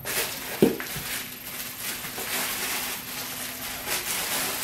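Pink bubble-wrap packing crinkling and rustling as it is handled and lifted out of a cardboard box, with a soft knock about half a second in.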